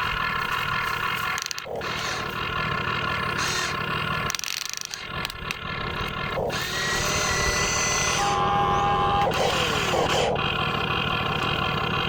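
Whine of the small electric motors on radio-controlled model construction machines, in several short clips cut together.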